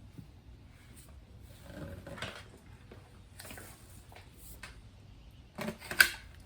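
Plastic parts of a Shark Rocket stick vacuum being handled and fitted back together: soft scrapes and rattles, then a few sharp clicks near the end, the loudest a single snap.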